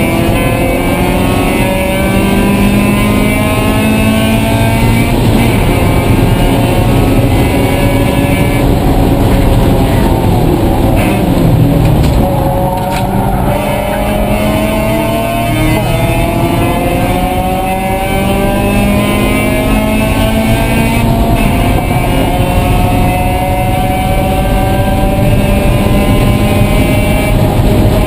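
Mazda Miata race car engine at full throttle, heard from inside the stripped cockpit. The pitch climbs steadily for about ten seconds, falls away for a couple of seconds as the car slows, then climbs again as it accelerates.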